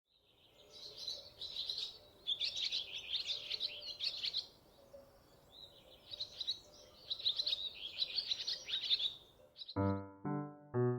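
A songbird singing two long, rapid twittering phrases, the second followed by a short burst just before the end. Near the end, a keyboard or electric piano begins playing separate, evenly spaced notes.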